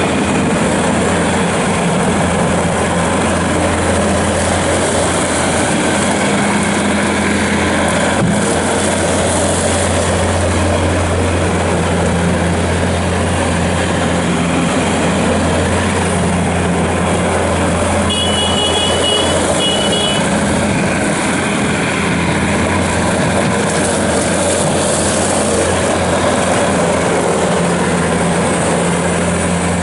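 A Bobcat S590 skid steer loader's diesel engine running steadily as the machine is operated, with a loud, even hum. A short run of high-pitched beeps sounds about two-thirds of the way through.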